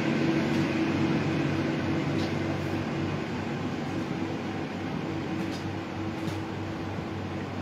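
Steady mechanical hum of a passenger railway coach's onboard air-conditioning and ventilation equipment, heard inside the coach, with a low drone and a faint higher steady tone. A few faint clicks sound over it.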